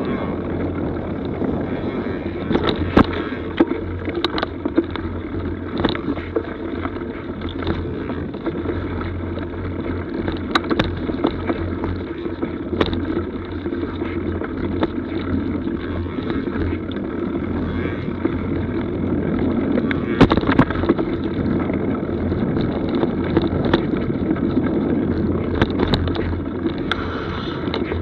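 Mountain bike rolling along a leafy dirt forest trail: a steady rumble of tyres and wind on the action camera's microphone, broken by frequent sharp knocks and rattles as the bike goes over bumps.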